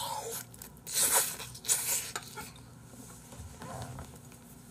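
Chewing a mouthful of beef tartare with cheese and radish sprouts, heard close up: a few short chewing noises, about one second in and again about two seconds in.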